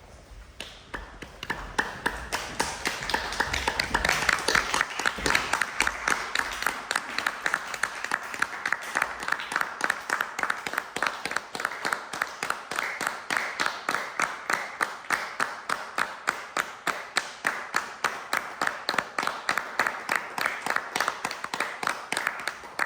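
Audience applause that swells over the first few seconds, then falls into an even rhythm of about three to four claps a second.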